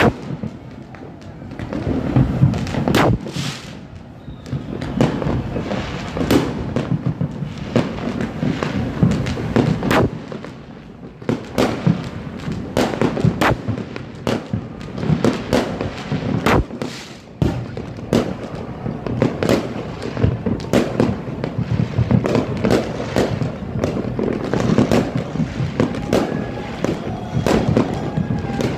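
Aerial fireworks bursting: a dense, irregular run of sharp bangs, often several within a second, over a continuous low rumble of more distant bursts.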